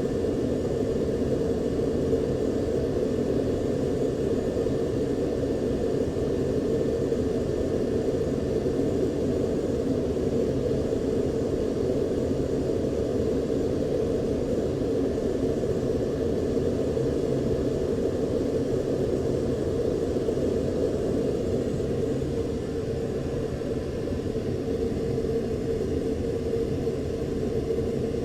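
Steady engine rumble with a faint high whine, unbroken throughout and dipping slightly in level a little past the middle.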